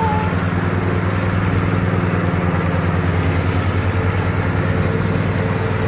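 Ariens zero-turn riding mower's engine running at a steady speed while mowing grass: an even low drone.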